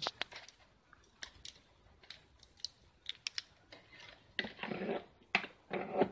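Light clicks and taps of hand tools and test leads being handled on a workbench, followed from about four seconds in by a few short scraping, rustling bursts.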